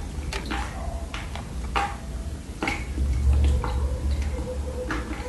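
Close-miked crunching of dry loess clay being bitten and chewed: sharp, irregular crackling snaps, about nine in all, over a low rumble.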